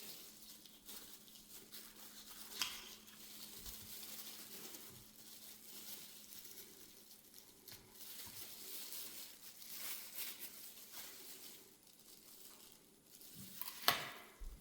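Faint kitchen food-preparation noises: crinkling and rustling with scattered light clicks, and a sharper click near the end.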